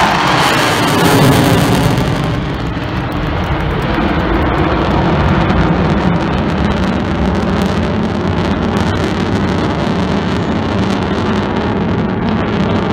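F-16 fighter jet passing overhead: a loud roar of jet engine noise, sharpest in the first two seconds, then a steady, duller rumble as it draws away.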